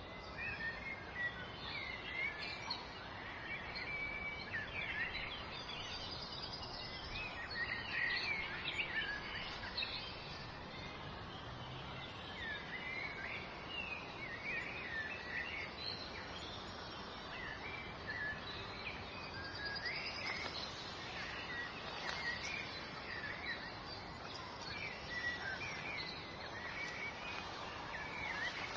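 Small birds chirping and twittering over a steady background hiss, many quick high chirps throughout.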